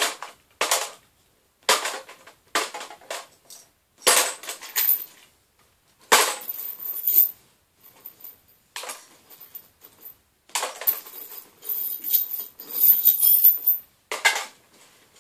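Small hard objects clattering as they are tossed back into a container: a string of sharp clacks and rattles, some single, some in longer runs of a second or more.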